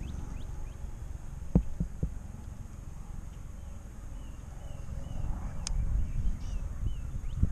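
Wind rumbling on the microphone, with a sharp knock about a second and a half in and two softer knocks just after. Later come short repeated chirping calls of a small animal.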